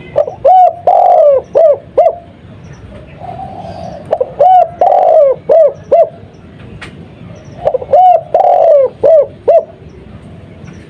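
Spotted dove (tekukur) of the Madura 'kuk 2' song type cooing three times, each call a few short coos, a longer drawn coo, then two short closing notes. The calls come about every three and a half seconds.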